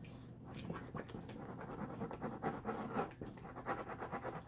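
Wet squelching and crackling of a still-runny glue, baking soda and contact solution slime mixture being squeezed and stirred by hand in a bowl, loudest about halfway through.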